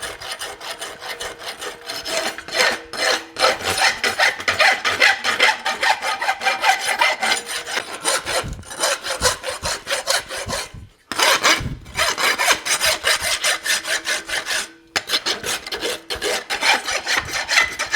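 Farrier's rasp filing the edge of a heated forged steel horseshoe in quick back-and-forth strokes, shaping and cleaning up its perimeter at the toe. The rasping breaks off briefly twice, near the middle and about three quarters of the way through.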